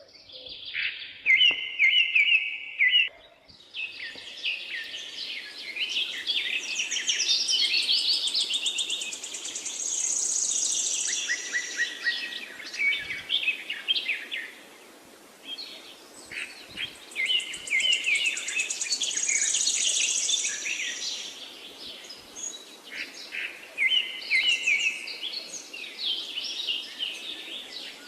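Several birds chirping and singing, with calls and rapid trills overlapping over a faint steady background hiss.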